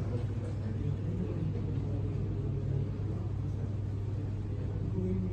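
Steady low hum of room background noise, with a faint murmur of onlookers.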